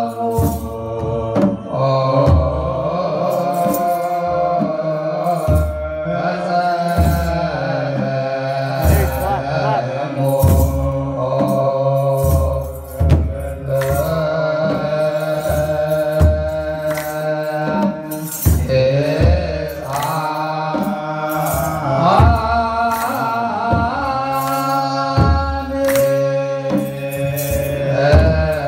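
Ethiopian Orthodox church chant (mezmur) sung by a group of voices in long, gliding unison lines, over a kebero drum beating a slow, steady pulse. Short metallic rattles, likely from sistrums (tsenatsil), fall on some of the beats.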